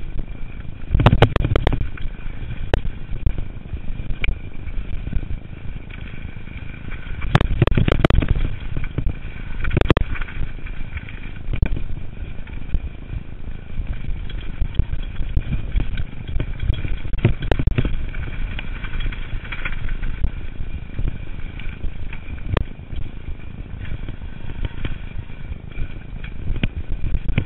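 Mountain bike ridden fast down a dirt forest trail: a steady low rumble of tyres over the ground with the bike rattling and clattering, and sharp knocks as it hits bumps, heaviest about a second in and around seven to ten seconds in.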